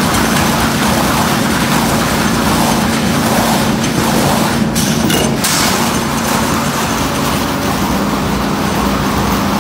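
Industrial wood lathe running, its carriage-mounted cutter shaving a spinning log into a round cylinder: a steady machine noise with a constant low hum.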